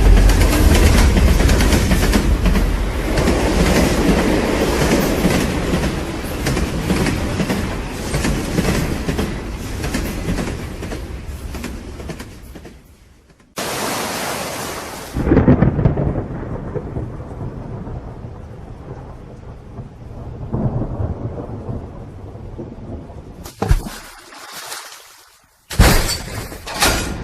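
Thunder rumbling and cracking over rain, in sections that start and cut off abruptly. A loud rushing rumble fades away over the first half, then a sharp thunderclap rolls out and decays, with shorter loud bursts and cuts near the end.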